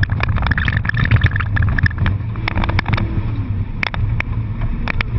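Car engine droning steadily low as the car is driven, heard from inside the cabin, with many sharp clicks and rattles over it.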